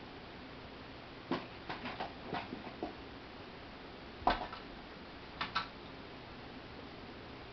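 Toy mouse and a kitten's paws knocking and tapping on a hard floor during play: a quick scatter of light taps, a louder single knock about four seconds in, then two more taps.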